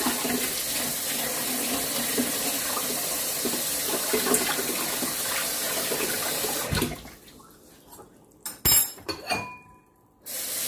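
Kitchen tap running into a sink for about seven seconds, then shut off, as a utensil is rinsed. A couple of knocks and a short metal clink follow, and the water starts again near the end.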